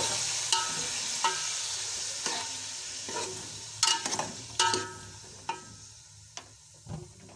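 Chicken pieces sizzling in hot oil in a steel pot, the sizzle fading over the seconds. A metal spoon knocks and rings against the pot about once a second as the chicken is stirred.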